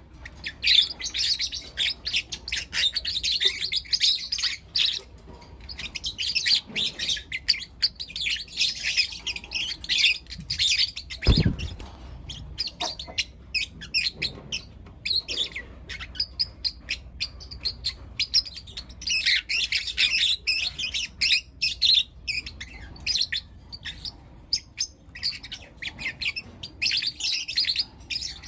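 A group of young lutino lovebirds chirping: rapid, high chirps in busy runs, broken by a few quieter stretches. A single low knock about eleven seconds in.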